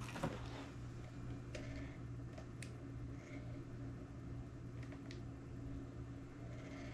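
Sony DCR-TRV900 camcorder's zoom lens mechanism running: a faint steady hum with a few small clicks. The zoom makes an unexplained noise up to a certain point of its travel, which the owner puts down to something mechanical inside, such as dried-up grease or lubricant.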